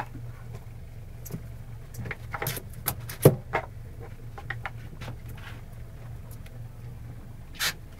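Steady low hum of a boat's engine running, with scattered sharp clicks and knocks over it, a cluster around the middle and the loudest a little past three seconds in.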